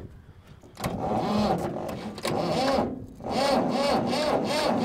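Massey tractor's starter cranking the engine in two spells, with a short break about three seconds in, and the engine not catching. The jumper cables and the lead on the starter are loose, so the starter is not getting a good connection.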